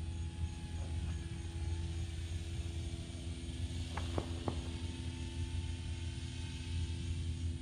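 Small electric motor and propeller of a ZOHD Drift RC foam glider humming steadily in flight overhead, over a steady low rumble. Three faint clicks come about four seconds in.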